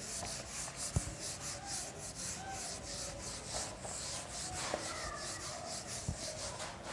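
Whiteboard eraser rubbing across a marker board in quick back-and-forth strokes: a hissing wipe that pulses with each stroke. Two light knocks come about a second in and again near the end.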